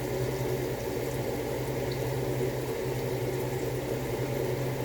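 Pan of tomato sauce simmering on the stove, bubbling steadily, over a steady low hum.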